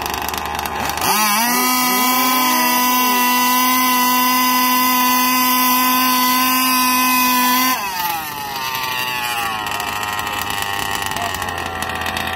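Small two-stroke gas engine of a 1/5-scale RC dragster revved up sharply about a second in and held at a high, steady whine for about six and a half seconds, then let back down, with a few smaller revs rising and falling afterwards.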